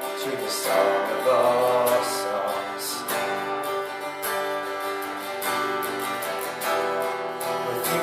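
Live worship music: an acoustic guitar strumming over held chords, with a faint voice carrying the melody.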